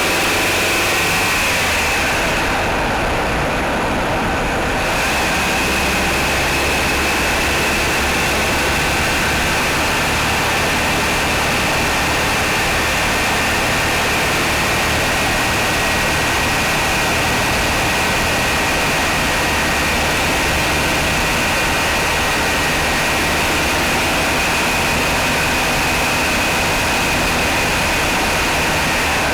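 Mitsubishi Outlander's 4G63 four-cylinder engine running steadily, with a steady high whine over it.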